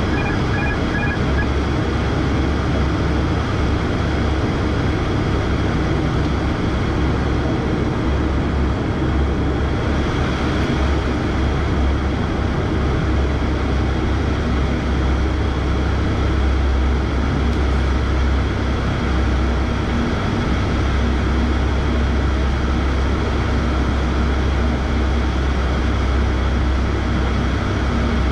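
Cockpit noise of an ATR turboprop airliner in flight: the steady drone of its engines and propellers with rushing airflow, heavy in the low end.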